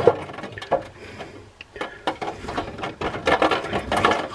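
A small bristle brush scrubbing and scraping inside a metal sink drain tailpiece, working loose black gunk that is slowing the drain. A few scattered scrapes and clicks at first, then steadier back-and-forth scrubbing from about two seconds in.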